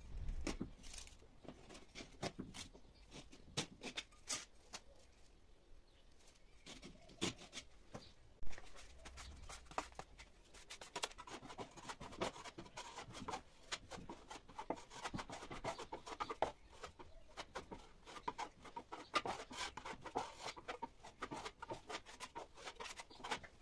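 Steel plastering trowel scraping and spreading joint compound over a plasterboard patch in short, repeated strokes. In the first half there are scattered taps and clicks of a putty knife and mesh tape against the board.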